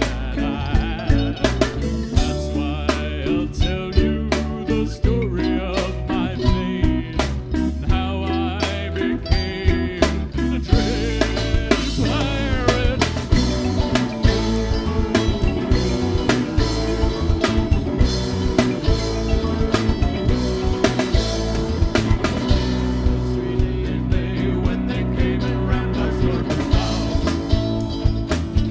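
Live rock band playing with drum kit and guitar, with some singing.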